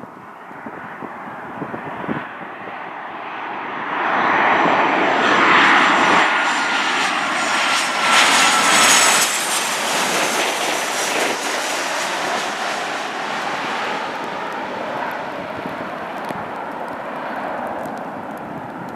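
Boeing 737-800 jet airliner's CFM56 turbofan engines passing close on landing: a steady engine noise that swells about four seconds in, peaks with a high whine that slides slightly down in pitch as the aircraft goes by, then slowly fades.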